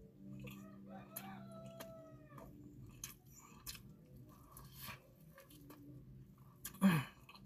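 Biting and chewing crispy fried chicken, with scattered crunchy clicks. A rooster crows in the background about a second in, and a short vocal sound from the eater comes near the end.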